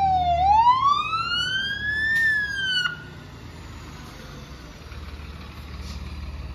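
Fire engine siren wailing: one falling, rising and falling sweep in pitch that cuts off suddenly about three seconds in. The truck then idles with a low rumble.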